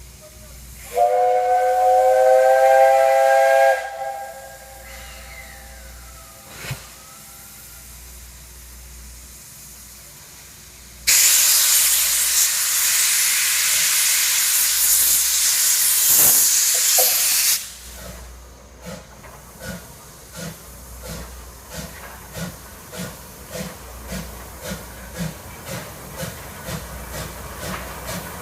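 Steam locomotive 58654 (JNR 8620 class) departing. It sounds one whistle of about three seconds, a chord of several tones. About ten seconds in comes a loud hiss of steam lasting about six seconds, then its exhaust chuffs begin and gradually quicken as it pulls away.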